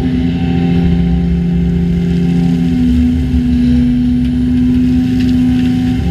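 Heavy-plant diesel engine running steadily with a low, humming note that steps up in pitch and strengthens about halfway through.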